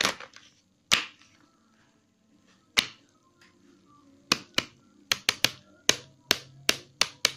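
Sharp taps of a hard purple plastic object against a braided whip cord and the table beneath it: a few spaced taps at first, then quicker ones about three a second from about four seconds in.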